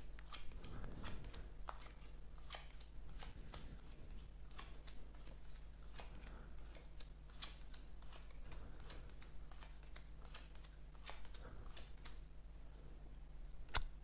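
Playing cards dealt one at a time off a deck and laid face up on a cloth card mat: a faint, irregular run of soft card snaps and slides, a few per second.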